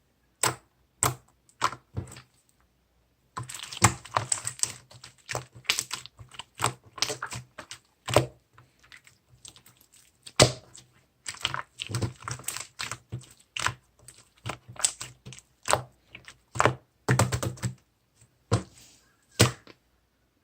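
Typing on a keyboard: irregular runs of quick key clicks, broken by short pauses and a few single harder taps.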